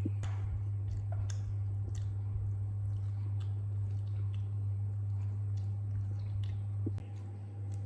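Steady low hum with scattered soft clicks and crunch-like ticks over it.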